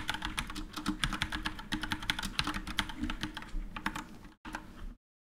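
Fast typing on a computer keyboard: a dense, uneven run of key clicks that pauses briefly and then stops about five seconds in.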